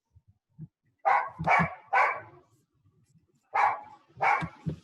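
A dog barking six times, in two quick groups of three.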